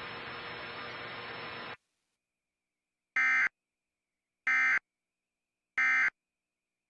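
Steady static hiss that cuts off suddenly, then three short identical electronic data bursts, warbling buzzes about a third of a second each, about 1.3 s apart: the Emergency Alert System end-of-message (EOM) code bursts that close an alert.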